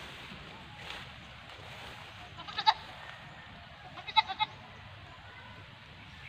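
A goat bleating twice: a short high call about two and a half seconds in, and a second, broken call about four seconds in.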